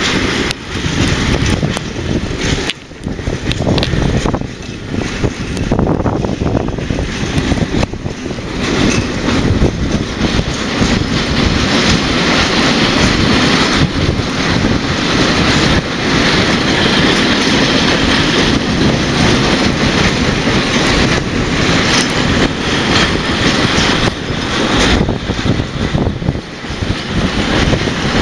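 A freight train hauled by an SNCF electric locomotive rolls across a railway bridge: the wagons make a steady, loud running noise as they pass, with wind buffeting the microphone.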